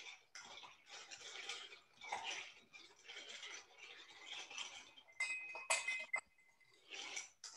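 Ice cubes swirling and rattling in a glass as a cocktail is stirred with a spoon, a swish about twice a second, with a few sharp ringing clinks of the spoon against the glass about five to six seconds in.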